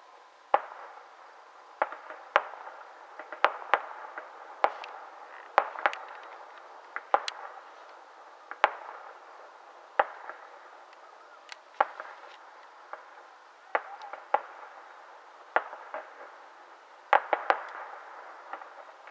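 Aerial fireworks going off: a run of irregular sharp bangs, roughly one a second with some coming in quick pairs, over a steady background hiss.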